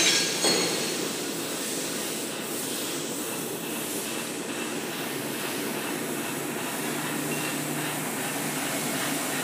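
Automatic napkin-making machine running with a steady mechanical noise, with two sharp knocks in the first half-second.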